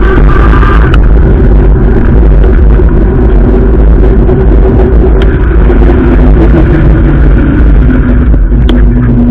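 Loud, steady wind rumble on the microphone of a camera riding on a moving fat-tyre e-bike, mixed with road and tyre noise and a low hum that drifts slowly in pitch.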